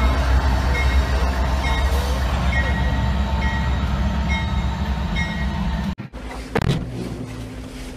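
Ferromex diesel locomotive passing close at speed, a heavy steady low rumble, with a short high tone repeating about every three quarters of a second. It cuts off about six seconds in, leaving a quieter steady hum.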